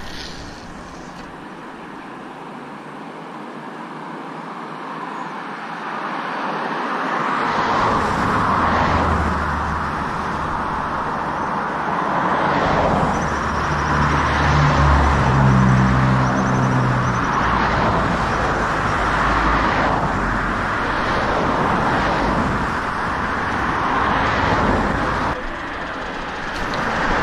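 Road traffic passing close by on a bridge: tyre and engine noise from cars swelling and fading one after another, quieter in the first few seconds. About halfway through, a vehicle with a low engine note passes.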